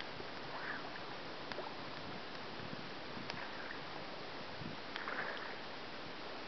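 Steady hiss of a large river's current flowing past, with a few faint short ticks over it.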